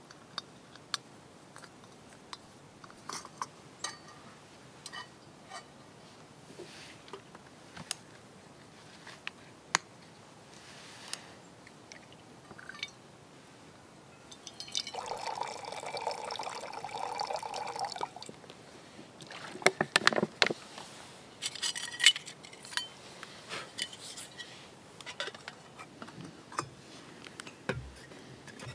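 Water streaming from a squeeze filter into a small metal camp pot for about three seconds, a steady trickling splash. Before and after it come scattered small clicks and knocks of gear being handled.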